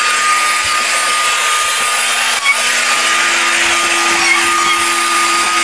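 Vacuum cleaner running steadily with a constant motor whine, its hose being used to suck up Japanese beetles. There is a brief knock about two and a half seconds in.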